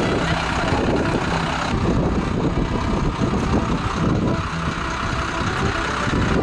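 Converted school bus's engine idling steadily as people climb aboard.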